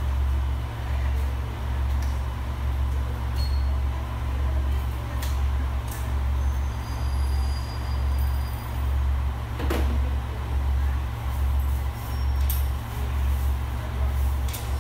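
Deep, steady hum of a large diesel engine idling, swelling and fading slightly about once a second, with a few faint clicks over it.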